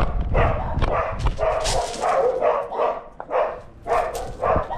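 A German Shepherd Dog making a run of short, breathy sounds close to the harness-mounted camera, with low rumbling from the harness and camera moving on its back.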